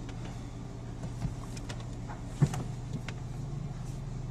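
Car engine idling, heard from inside the cabin as a steady low hum, with a few light clicks and one sharp click or knock about two and a half seconds in.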